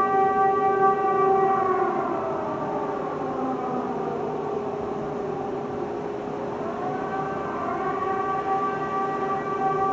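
WWII-era Paris civil-defence warning siren sounding its monthly test signal: a steady wailing tone that slides down in pitch about two seconds in, then climbs back up to full pitch about seven to eight seconds in.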